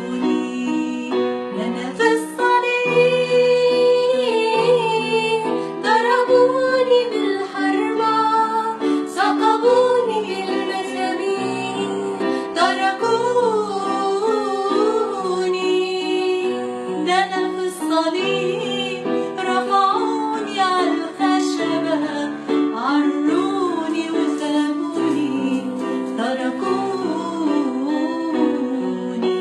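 An Arabic Christian hymn (tarnima) sung by a solo voice with a melodic line that glides and ornaments, over an instrumental accompaniment of held chords.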